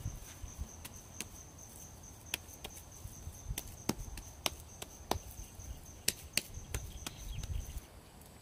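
A dozen or so sharp, irregularly spaced knocks, like chopping strokes. Under them runs a steady high-pitched tone that stops near the end.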